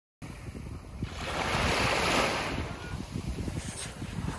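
Surf washing up onto a sandy beach, a wave swelling about a second in and then drawing back. Wind rumble on the microphone.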